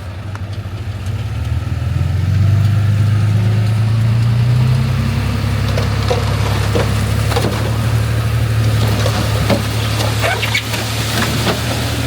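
Heavy diesel engine of earth-moving machinery running hard, swelling over the first two seconds and then holding steady, with scattered clanks and knocks from about six seconds in.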